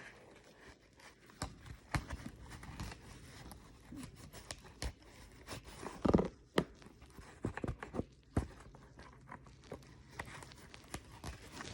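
Paper and card of a handmade journal being handled: scattered light rustles, taps and scrapes, with a louder cluster of handling noise about six seconds in.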